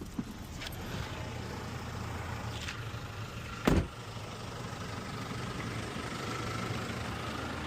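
Holden VY Commodore engine idling steadily while the car sits stopped, heard from inside the cabin. A single sharp thump about four seconds in.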